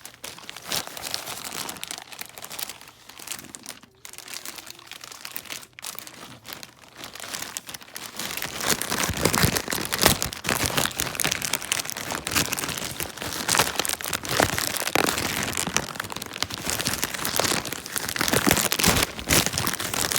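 Packaging crinkling and crackling as an item is unwrapped by hand, a dense crackle that gets louder about eight seconds in.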